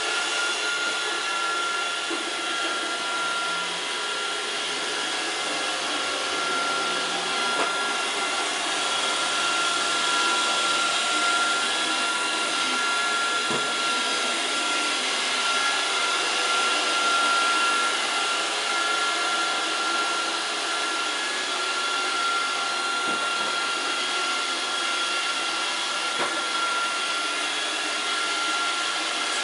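Roomba robot vacuum running steadily, with a constant high whine over its motor noise. A few faint knocks stand out over it.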